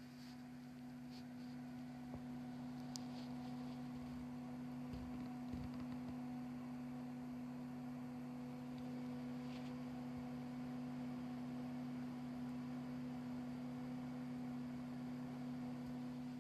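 Intel stock CPU cooler fan running at a steady speed: a steady hum of two low tones with fainter higher tones above, and a couple of faint ticks.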